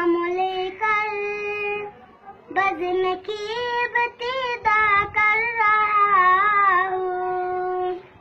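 A young boy singing an Urdu hamd, devotional praise of God, solo in a high voice with long drawn-out, ornamented notes. He pauses briefly about two seconds in, then sings on and ends on a long held note.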